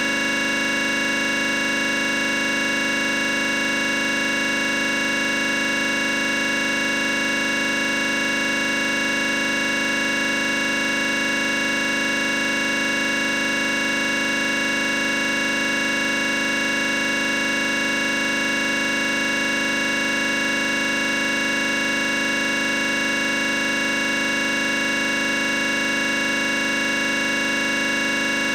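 A steady, unchanging electronic drone: many tones held together at constant loudness, with no rhythm, melody or change.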